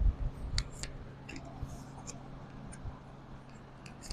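Faint scattered small clicks and light handling rustle over a low steady hum.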